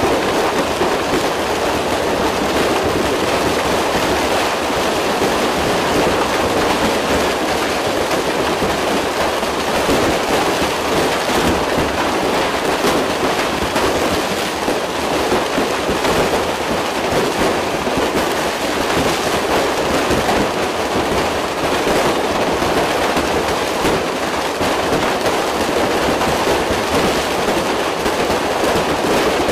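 Fireworks stock going off inside a burning warehouse: a continuous dense crackle of many rapid pops and small bangs over a steady rushing noise.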